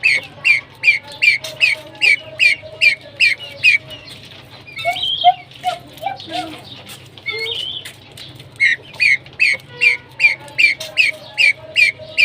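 Captive pheasants calling: a rapid, even series of short high chirps, about two to three a second, that stops for a few seconds in the middle while a few lower calls come through, then starts again.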